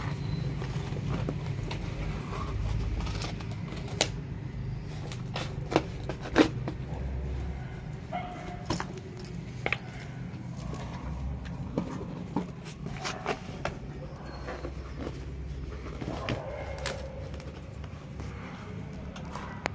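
Scattered crackles and sharp clicks of cardboard and plastic being torn and moved about by a beagle chewing up a box, over a low, uneven rumble.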